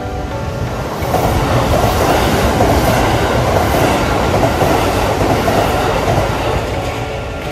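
Kintetsu passenger train passing the station: a steady rush and rumble of wheels on the rails, louder from about a second in.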